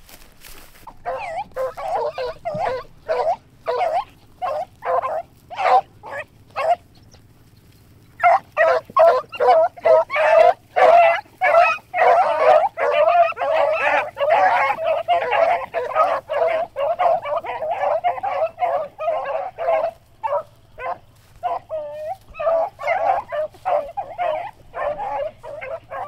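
A pack of beagles baying as they run a rabbit's scent trail: scattered single cries at first, then many dogs giving voice at once in a dense, continuous chorus, which thins back to separate cries near the end.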